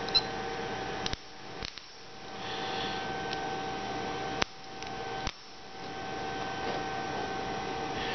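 A steady electrical hum with a thin whine in it, broken by a few sharp clicks and knocks as the camera is handled and set down.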